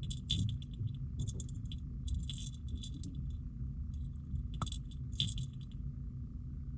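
Hard plastic jerkbait, a copy of the Megabass Vision Oneten, shaken in short bursts about once a second so the loose weight balls inside click and rattle.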